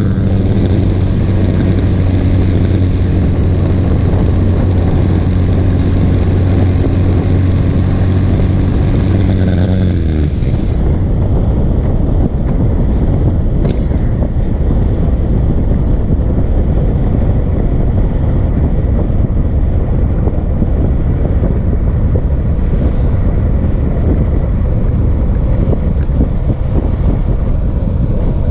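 Motorcycle engine running at a steady cruising note under wind rush; about ten seconds in the throttle is rolled off and the engine note drops away, leaving mostly wind buffeting on the microphone as the bike slows toward a turn.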